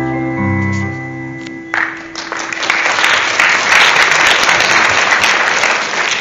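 Instrumental accompaniment holding and fading on the closing chords of a Hungarian nóta, then an audience applauding from about two seconds in.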